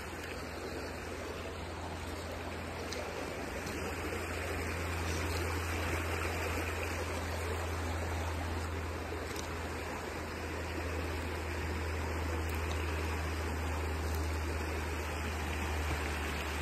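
Shallow stream flowing over a stony bed, a steady babbling rush of water that grows a little louder about a third of the way in.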